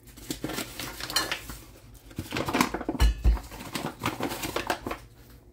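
Light clatter and rustling of kitchen things being handled, made up of scattered small clicks and knocks, with a dull low thump about three seconds in.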